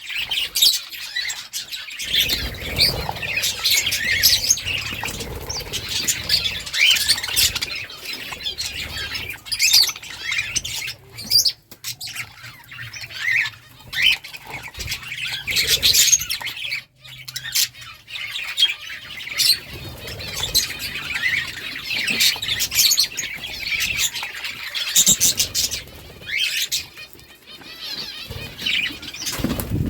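A flock of budgerigars chirping and chattering continuously, with squawks mixed in.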